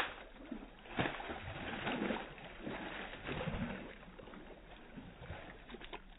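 Muddy water splashing and sloshing as a dog thrashes in a shallow creek while tugging at a branch, with sharp splashes at the start and about a second in. It dies down over the last couple of seconds.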